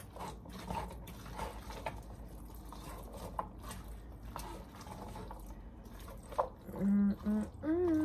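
A spoon stirring a pot of canned red kidney beans with sausage and tomato paste: wet, liquid sloshing with scattered small clicks of the spoon against the pot, over a steady low hum. A short voice sounds near the end.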